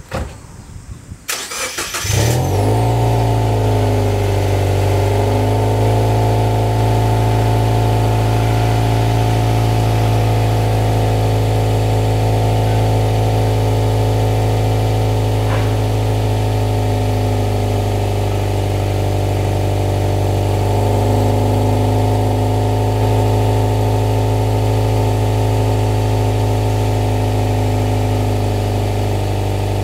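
Cold start of a Subaru Legacy 2.0GT's turbocharged flat-four through an Apexi N1 dual exhaust fitted with Apexi Active Silencer inserts. The starter cranks briefly, the engine catches about two seconds in, then it settles into a loud, steady cold idle.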